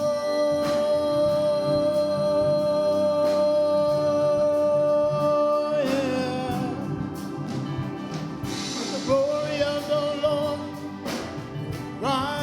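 Gospel worship music with singing: one long note is held for about six seconds over the band, then the music moves on.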